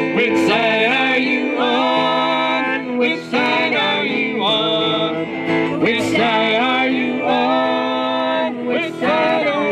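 Music: a country-style song with plucked strings under a melody that slides in pitch.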